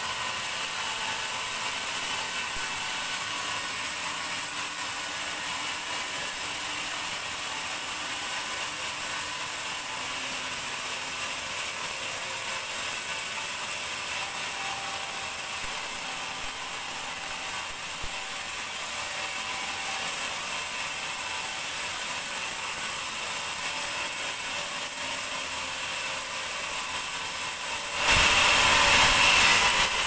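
Large band sawmill blade running and cutting lengthwise through a teak log, a steady mechanical saw noise. It grows louder about two seconds before the end as the cut nears the end of the log.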